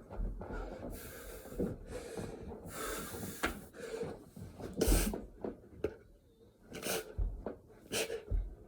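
A person breathing hard through a set of burpees, with heavy exhaled breaths and several thuds of hands and feet landing on the floor, the strongest about five seconds in and again near seven and eight seconds.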